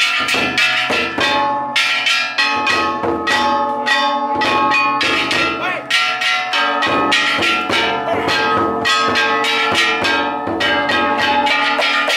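A festival float's large taiko drum and brass kane gongs beaten together fast and without pause: a dense clanging of strikes over the gongs' lasting metallic ringing.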